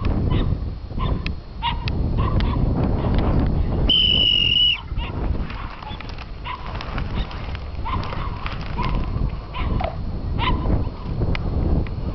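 German Wirehaired Pointer whining and yipping in many short high calls, with a steady high tone lasting about a second around four seconds in, over a constant low rumble.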